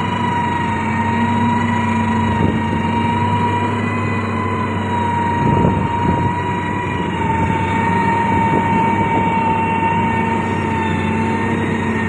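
SANY STG190C-8S motor grader running under load as its blade pushes clay, a steady diesel drone with a high whine over it. A brief louder surge comes about halfway through.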